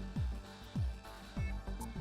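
Background music: an electronic track with a steady kick-drum beat, about one beat every 0.6 s, over held low synth notes.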